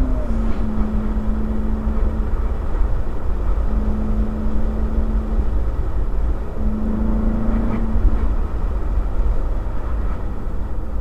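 Ferrari California's V8 engine cruising with the roof down, its steady drone fading in and out under heavy wind buffeting on the microphone and road noise. The engine note steps down slightly at the very start.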